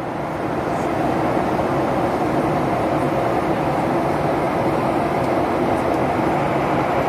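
Steady noise of an airliner's engines and airflow heard inside the cabin in flight.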